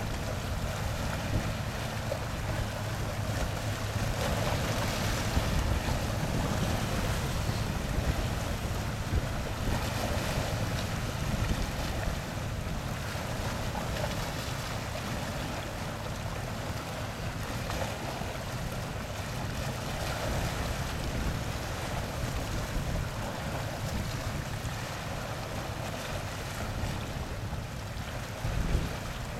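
Wind buffeting the microphone over a steady rush of water and waves.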